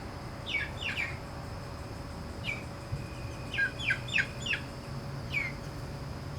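Young chickens peeping: short, high chirps that each drop in pitch, coming in a few quick runs of two to four.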